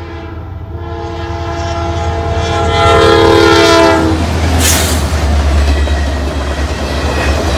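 Diesel locomotive's multi-note horn blowing for a grade crossing, one long blast growing louder and cutting off about four seconds in. The train then rushes past with a heavy low rumble and rail noise.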